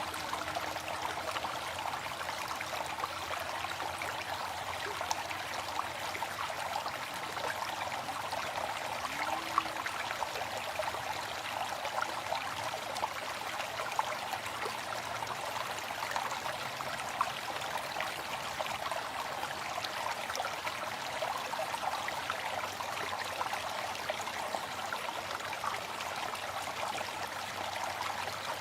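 Waterfall: a steady rush of falling, splashing water, with scattered sharper splashes.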